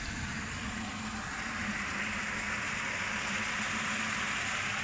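Tour boat under way, its motor running with a low steady hum under an even hiss that grows a little louder about two seconds in.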